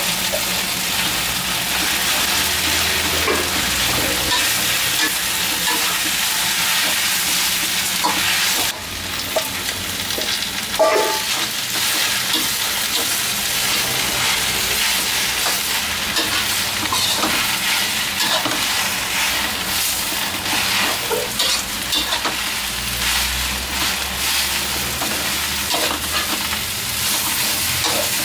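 Stir-fry sizzling in a wok as freshly added napa cabbage, glass noodles and pork are tossed, with a metal spatula scraping and clicking against the pan.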